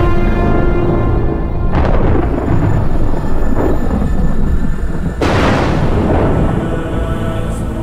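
Dramatic film music with two thunderclaps, the first about two seconds in and the second about five seconds in, each a sudden crash that fades away.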